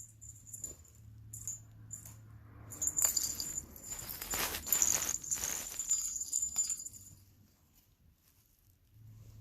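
Small jingle bell on a cat toy jingling and rattling as the toy is batted about, busiest and loudest from about three to seven seconds in.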